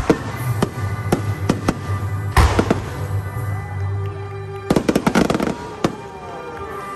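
Aerial firework shells bursting in a rapid volley: a string of sharp bangs, the loudest about two and a half seconds in, then a fast cluster of crackling reports around five seconds in. Music plays underneath throughout.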